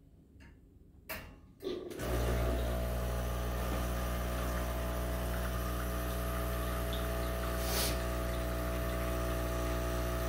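ECM Mechanika V Slim heat-exchanger espresso machine flushing its E61 group head. After a couple of clicks as the cup is set down and the lever is lifted, the rotary pump starts about two seconds in and runs with a steady hum. Water sprays into the cup, coming out quick and bubbly as the superheated water is cleared from the group.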